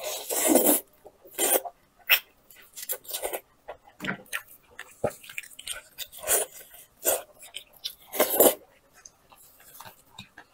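Close-miked eating sounds: wet biting, sucking and smacking chewing of saucy food, in irregular bursts with small clicks. The loudest bursts come about half a second in and again at about eight seconds.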